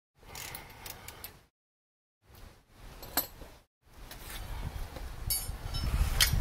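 Metal tools and brake parts being handled, with several sharp metallic clinks, in short clips broken by brief gaps of dead silence; a low rumble builds up in the last couple of seconds.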